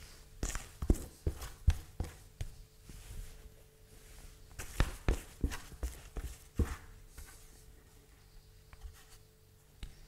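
Rye bread dough being scraped by hand out of a red plastic mixing bowl: irregular knocks and scuffs of the bowl and hand, busiest in the first couple of seconds and again around the middle, sparser toward the end.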